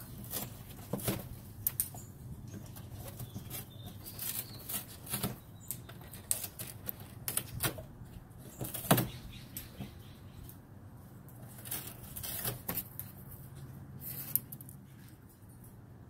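A galah cockatoo moving about on a cardboard box: irregular taps, scratches and rustles of its feet and beak on the cardboard, with one sharper knock about nine seconds in.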